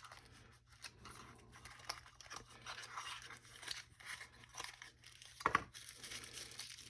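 Plastic and paper packaging being handled and unwrapped: faint crinkling and rustling with small clicks and taps, and one brief louder sound about five and a half seconds in.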